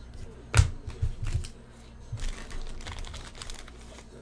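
Typing on a computer keyboard: a sharp knock about half a second in, then a run of light, quick key clicks.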